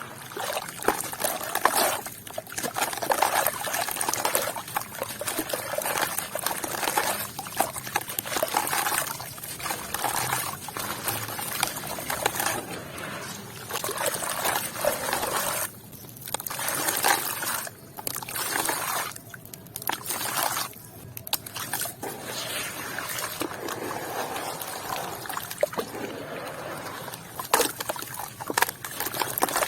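Wet sand and red dirt crumbling and dropping into water, with trickling and sloshing sounds that run on irregularly, broken by a few brief pauses.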